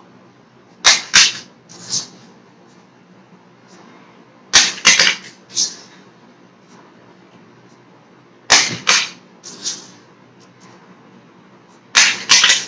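A small matchbox flipped into the air and clattering down onto the tabletop, a quick cluster of sharp clacks as it lands and tumbles. This happens four times, one toss every three to four seconds.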